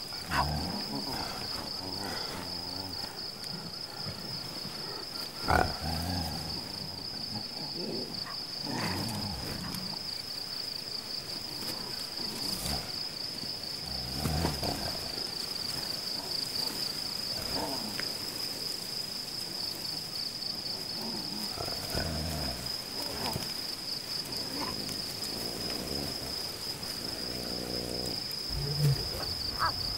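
Lion cubs and a lioness giving short calls every few seconds as they play, over a steady, high, pulsing insect chorus.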